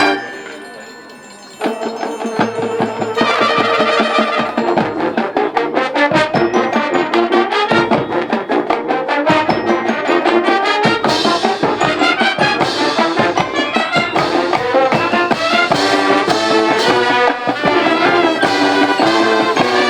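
High school marching band playing, brass and drums together. A loud held chord breaks off at the very start, the sound dies down briefly, and about a second and a half in the band comes back in with a busy, fast-moving passage of brass over percussion.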